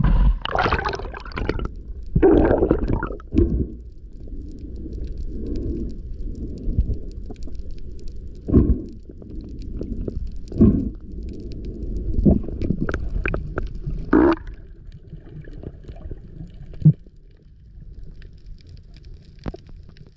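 Water sloshing and splashing around an action camera at the surface, then underwater: a low rumble with bubbling and a few sharp knocks as the diver descends. The rumble fades a few seconds before the end.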